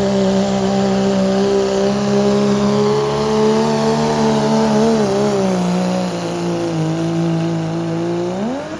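Diesel pickup truck engine at full throttle pulling a weight sled, a loud steady drone. Its pitch sags slowly from about halfway through, then rises sharply near the end.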